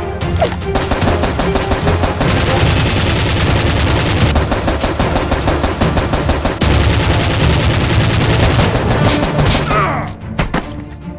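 Rapid automatic gunfire sound effects, shot after shot with no break, stopping about ten seconds in, over music with a steady low bass.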